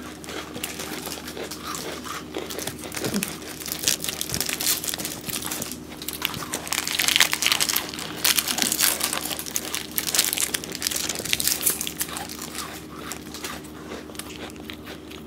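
Plastic biscuit wrapper crinkling and rustling as it is handled and opened, loudest in spells around the middle, over a faint steady hum.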